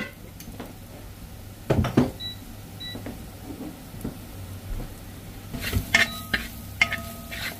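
A metal spoon knocking and scraping in a cooking pan as spice powder is stirred into frying onions, the metal ringing, busier near the end. Two short high beeps sound about two and three seconds in.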